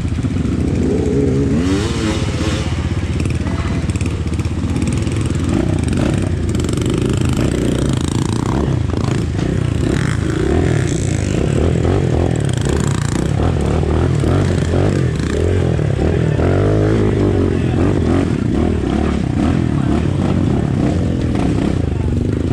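Dirt bike engine running under way, its pitch rising and falling with the throttle.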